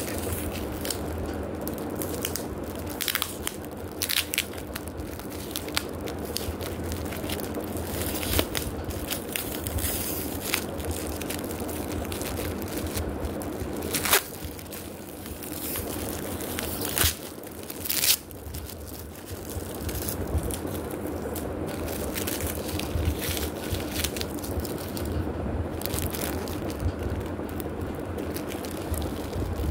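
Clear plastic packets crinkling and crackling as they are handled and shuffled, in irregular bursts, with a few sharper, louder crackles about halfway through.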